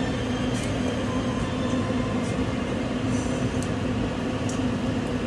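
Steady hum and rushing noise of a kitchen range hood fan over a steaming pot on the boil, with a few faint snips of kitchen scissors cutting shrimp.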